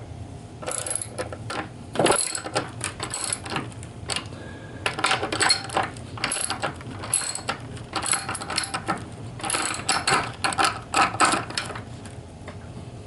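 Socket ratchet wrench driving a lag bolt through a bench vise's base into a wooden table, clicking in repeated bursts as the handle is swung back between turns.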